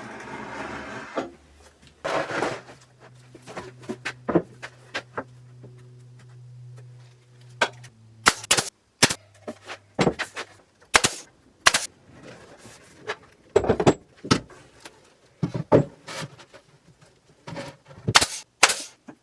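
A nail gun firing shot after shot into plywood as a cabinet box is nailed together: sharp cracks that come thick and fast through the second half, after a low steady hum in the first half.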